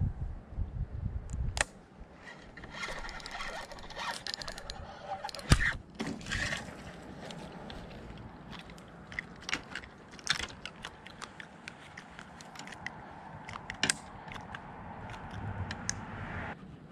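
Fishing reel being cranked, with scattered sharp clicks and scrapes of tackle handling while a hooked fish is reeled in and landed. A steady reeling sound in the last few seconds cuts off suddenly near the end. Wind buffets the microphone in the first second or so.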